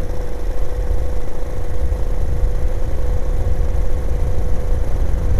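Peugeot Jetforce scooter engine running at a steady cruising speed, one held tone that neither rises nor falls, under heavy wind rumble on the microphone.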